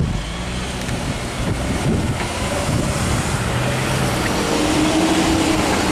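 An LIRR M7 electric commuter train approaching on the second track, a steady rumble that grows slowly louder, with a faint hum coming in near the end. Wind is on the microphone.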